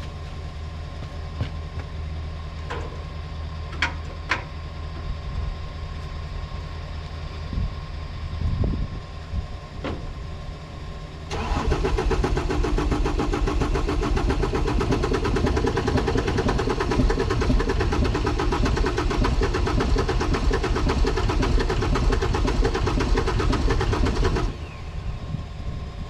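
The diesel engine of a John Deere 326D skid steer turning over on its starter for about thirteen seconds without catching, after a steady low hum with a few clicks, and stopping abruptly near the end. The engine makes smoke but doesn't run, which the owner puts down to fuel lines that may be run wrong.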